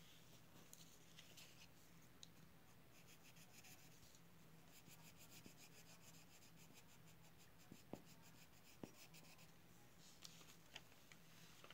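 Faint scratching of a drawing tool on paper in quick repeated strokes, over a low steady hum, with two soft taps about two-thirds of the way through.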